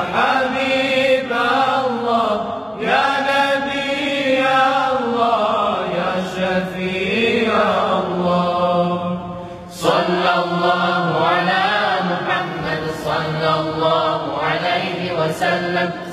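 Young men's choir singing a sholawat, the Arabic devotional praise of the Prophet Muhammad, in drawn-out melismatic lines. From about six seconds in, a steady low held note sounds under the melody. The singing drops away briefly just before ten seconds, then comes back in.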